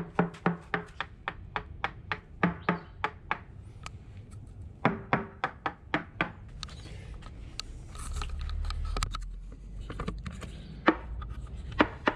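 A small hand tool tapping quickly along a fiberglass sailboat keel, about four to five taps a second in runs. This is a tap test to find hollow voids inside the keel: some taps ring with a short low tone, others are dull. A low rumble comes in about two-thirds of the way through.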